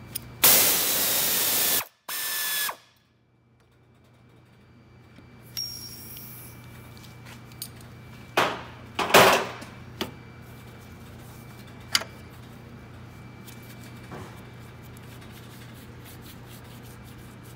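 A ratcheting tool run in a loud burst of about a second and a half, then again briefly, loosening the tight bolt of a noisy belt pulley. A few metallic clicks and clanks follow as the bolt and pulley are handled.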